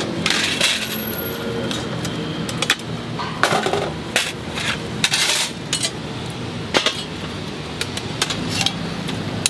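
Metal lids and pans on a charcoal egg-cake stove clanking and clinking as they are lifted, set down and shifted. There are many sharp metallic knocks, with a few short scraping clatters, over a steady low hum.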